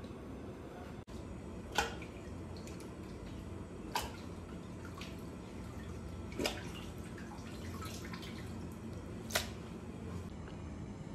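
Wet cleaned squid pieces dropping into a stainless steel pan with water dripping off them: four short wet plops a few seconds apart, over a steady low kitchen hum.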